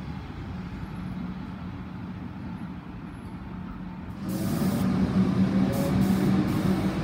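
Melbourne Metro electric suburban train at a station platform, giving a steady low hum. About four seconds in it gets much louder, with short hisses of air from its brakes.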